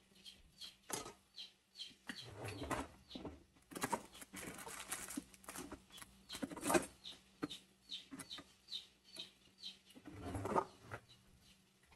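Chopped onions sizzling and crackling in a hot cast-iron skillet, with short high chirps repeating about twice a second throughout.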